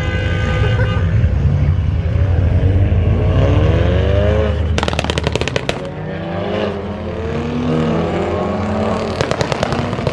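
Loud vehicle engine revving and pulling away, its pitch climbing twice. Two bursts of rapid exhaust pops and crackles, about five seconds in and again near the end.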